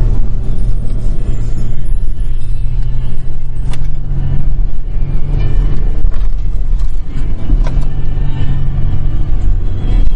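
SUV engine drone and low cabin rumble while driving over sand dunes, with a couple of sharp knocks, and music playing along with it.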